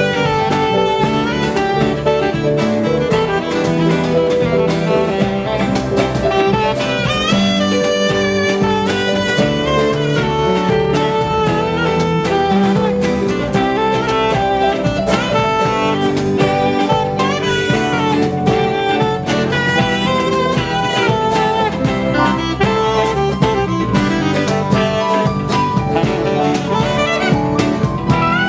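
A live rock band playing an instrumental break: a lead melody line with bending, sliding notes over strummed chords, bass and drums.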